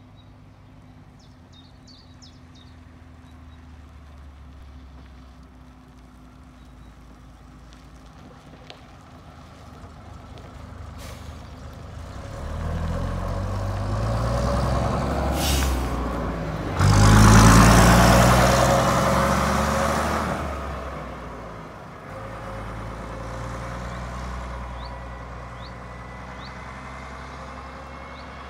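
Bristol VR double-decker bus driving past, its diesel engine growing louder as it approaches and loudest just past the middle, with a brief hiss a little before the peak. The engine then runs quieter and steadier as the bus moves away.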